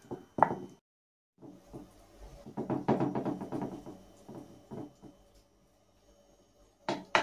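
Wooden spatula scraping and knocking against a glass baking dish as a layer of noodles is spread, in a run of quick strokes. There are a few sharp knocks near the start and two near the end.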